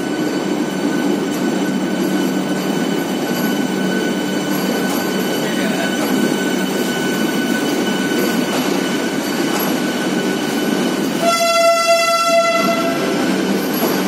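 Vande Bharat Express electric multiple-unit train rolling slowly out of the station with a steady hum and wheel rumble. About eleven seconds in, a train horn sounds once for about a second and a half.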